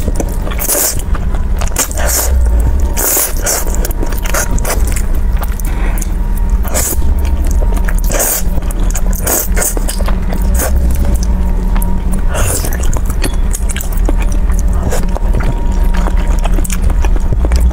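Close-miked slurping and chewing of spicy fried instant noodles eaten with chopsticks: a string of short, sharp slurps a second or two apart, with chewing in between, over a steady low hum.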